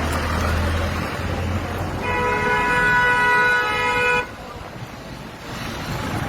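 A vehicle horn sounds one steady, held note for about two seconds, starting about two seconds in, over a noisy background of street traffic.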